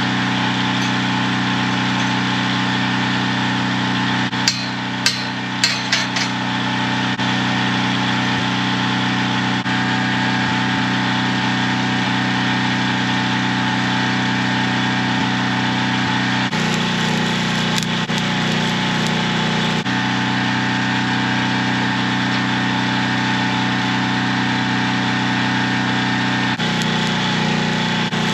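Engine-driven welder running steadily, with a few sharp metal knocks about four to six seconds in. Its note changes twice, for a few seconds about two-thirds of the way through and again near the end, as it takes load while the pipe is being arc-welded to the post.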